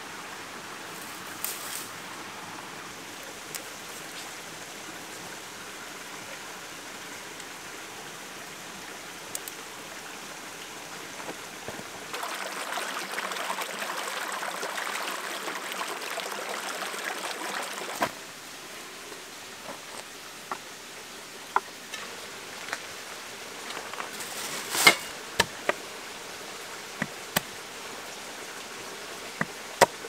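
Steady rain falling. About twelve seconds in, water splashes for around six seconds as a bunch of fresh herbs is rinsed in a small stream trickling over rock. After that come scattered sharp taps and knocks.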